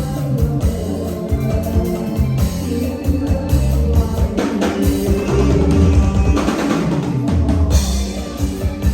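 Band music with a steady drum-kit beat and heavy bass.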